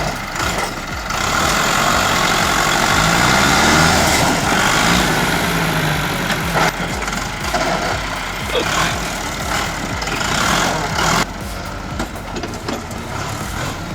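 Heavy vehicle engine running and revving, its pitch rising and falling a few seconds in, with scattered clanks and knocks over a loud rattling din that drops away about eleven seconds in.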